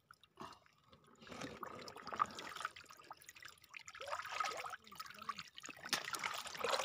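Shallow seawater over a rocky reef flat splashing and sloshing in irregular bursts: a longer spell from about one and a half seconds in, another around four seconds, and a third near the end.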